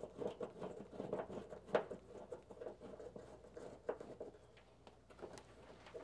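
Faint, scattered small clicks and scratching from hand work with a screwdriver, a self-tapping screw and a cable terminal on a water heater's sheet-metal top, with a sharper click about two seconds in and another near four.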